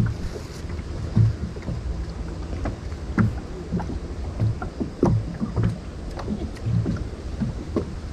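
Water lapping and knocking against the hull of a small boat on a river, with irregular short splashes over a low steady rumble.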